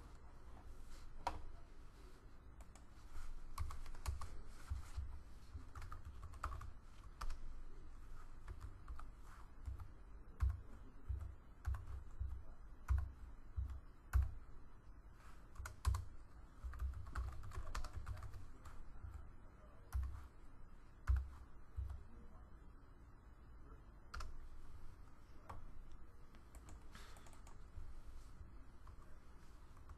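Typing on a computer keyboard: irregular runs of keystrokes, each a click with a dull thump, separated by short pauses and thinning out in the last several seconds.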